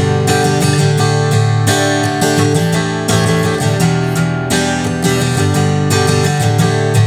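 Tagima Woodstock TW-25 folk acoustic guitar being strummed, its chords ringing on between repeated strokes.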